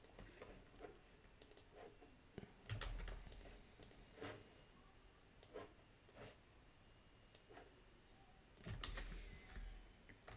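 Faint computer keyboard typing and mouse clicks, scattered and irregular. Two louder spells of clicking, each with a soft low thud, come about three seconds in and near the end.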